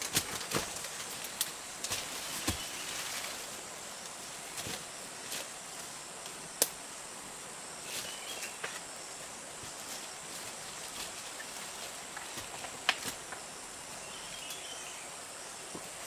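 Footsteps crunching through dry leaf litter and twigs snapping as a person moves through rainforest undergrowth, with sharp cracks scattered through and the loudest two about six and a half and thirteen seconds in. Under it runs a steady high insect drone.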